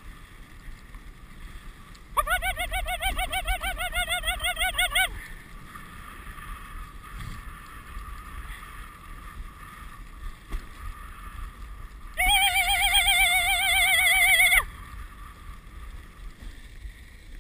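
Steady rushing of a dog sled gliding over snow, with wind on the microphone. Twice a loud, high warbling whistle-like tone sounds for two to three seconds and cuts off abruptly.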